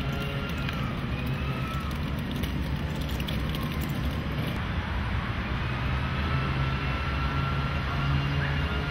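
Steady outdoor city ambience: a low, even rumble like distant traffic, with a constant low hum underneath.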